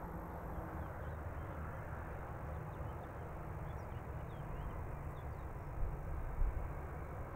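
Distant jet airliner engines running at low taxi thrust, a steady low rumble and hiss. A few faint high chirps come through mid-way, and two low thumps stand out near the end.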